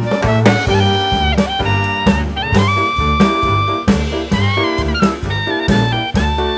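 Background music: an upbeat jazzy tune with a horn-like lead melody over a steady bass beat.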